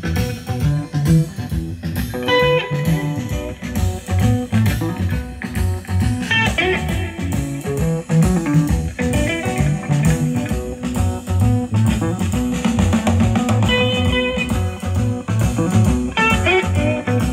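Blues music: guitar playing over a steady bass and drum beat.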